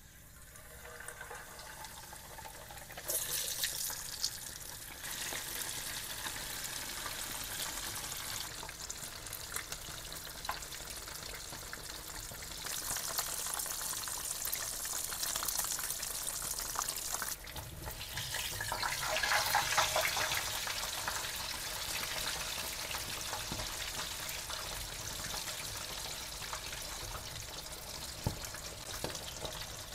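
A whole floured surf perch deep-frying in hot oil in a wok: a steady sizzle of bubbling oil that builds over the first few seconds as the fish goes in, then holds, swelling louder for a couple of seconds past the middle.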